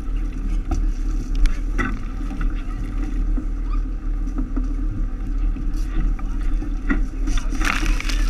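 Steady low rumble of the moving tour boat under way, with scattered splashes from water cannons. Near the end a burst of water spray hits right at the camera.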